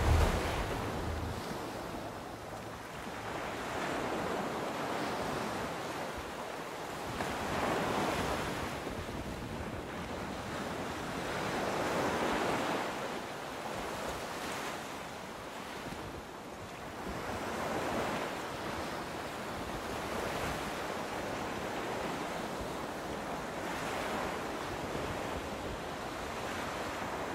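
Sea water rushing and washing along the hulls of a sailing catamaran under way, a steady noise that swells and fades every few seconds.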